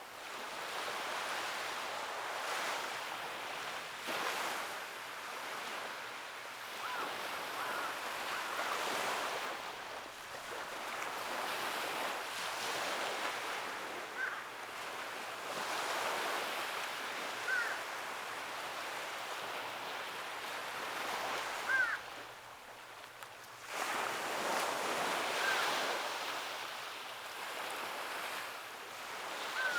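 Ocean surf washing onto the shore in repeated swells and ebbs, with a brief lull about three-quarters through. A few faint, very short high chirps sit over the surf.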